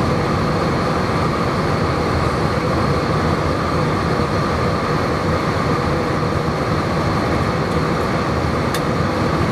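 Steady cabin noise of an Airbus A320 during its climb after takeoff: engine and airflow noise heard inside the cabin over the wing, with a few faint steady whining tones in it.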